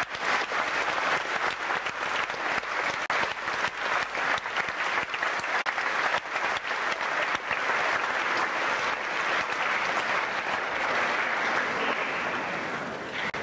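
A large audience of schoolboys applauding: dense, steady clapping that starts at once and begins to die away near the end.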